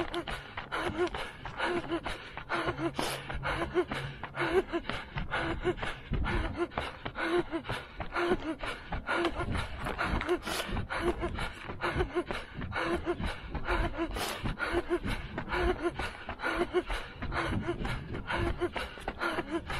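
A runner at sprint pace breathing hard in a steady rhythm, with quick, even footsteps on asphalt.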